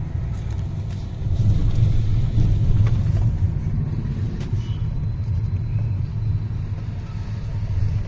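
Low, steady rumble of a car's engine and tyres heard from inside the moving car's cabin.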